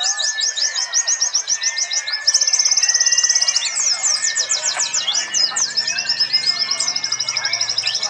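Several white-eyes (pleci, Zosterops) singing at once in rapid runs of high, quick chirping notes, with a fast, even trill about two seconds in that lasts about a second.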